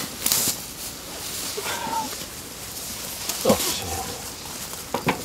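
Handling noise as a pike is lifted out of a mesh bag and laid on a plastic measuring board: rustling of the mesh near the start and a few sharp knocks near the end.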